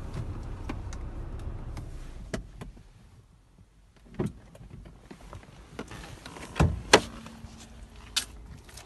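A car door being opened and handled from inside the cabin: a few sharp clicks and knocks, the loudest about seven seconds in. Before them a low steady hum fades out about three seconds in.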